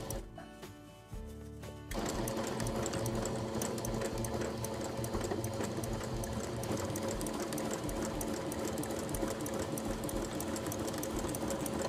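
Domestic electric sewing machine stitching a straight seam. It is quieter for about the first two seconds, then runs at a steady speed with a fast, even needle clatter over the motor's hum.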